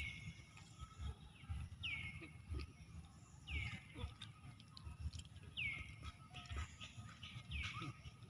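An animal's short high call, falling in pitch, repeated five times about every two seconds, over soft low thumps.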